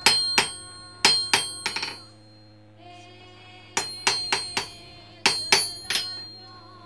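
Metal struck again and again, each blow ringing on with a clear bell-like tone, in quick groups of two to four. A softer held tone fills the gap between the groups, over a low steady hum.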